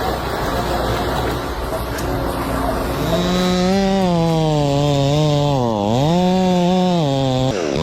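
Steady machinery rumble, then from about three seconds in a chainsaw running hard. Its engine note sags and recovers several times as the chain loads up in the wood.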